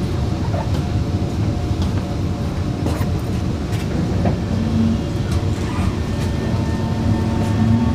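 Singapore MRT electric train heard from inside the carriage as it starts to move off from a station: a steady low rumble, with a motor whine beginning to rise in pitch near the end as the train accelerates.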